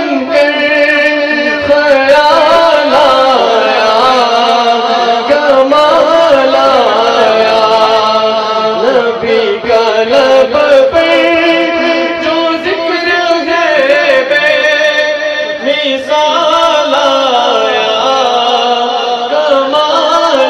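A man singing a naat, an Urdu devotional song in praise of the Prophet, into a microphone: a continuous melodic line of long held notes with wavering ornaments.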